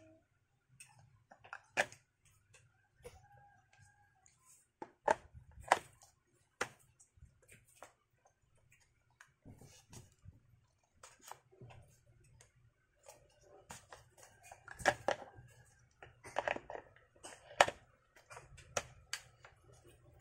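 Hard plastic clicks and knocks as the INGCO lithium-ion pressure washer's spray gun and foam cannon bottle are handled and fitted together. The sharpest clicks come in the second half.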